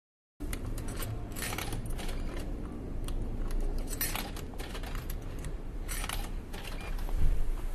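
Vending machine in use: metallic clinks typical of coins, in clusters about one and a half, four and six seconds in, over a low steady hum, then a heavier thud near the end.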